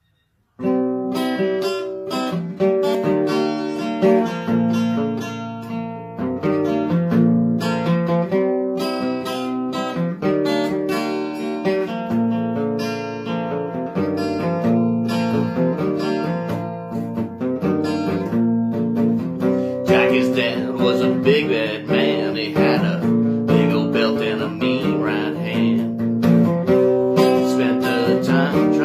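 Acoustic guitar being played, picked and strummed chords changing every second or so, starting abruptly about half a second in after silence.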